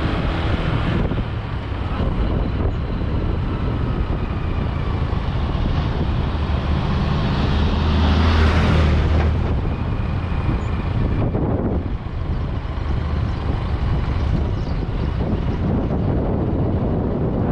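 Steady vehicle and road noise with wind on the microphone; it swells about eight seconds in, then eases off.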